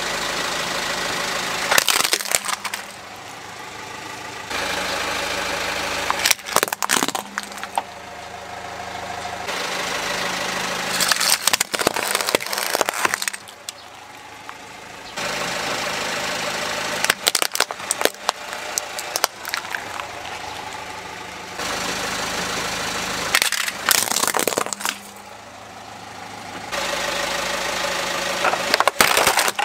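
A car's tyre rolling over plastic toy cars and crushing them, about five times in turn: each crush is a cluster of sharp cracks and snapping plastic. Between the crushes the car's engine runs steadily.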